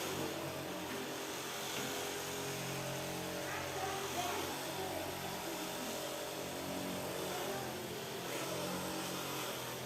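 Steady electric motor hum with a constant pitch and no change in speed.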